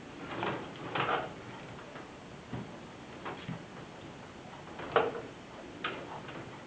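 Handling noises from a computer power-supply cable and its plastic drive power connectors: a few short clicks and rustles, the sharpest click about five seconds in.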